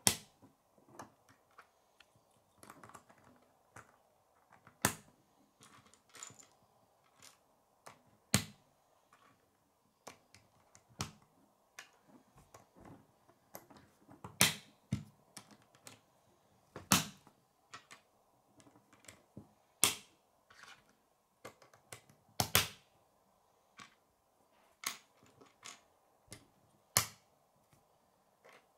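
K'nex plastic pieces clicking as rods and connectors are snapped together by hand, with irregular sharp clicks and knocks of parts on a wooden table, a few much louder than the rest.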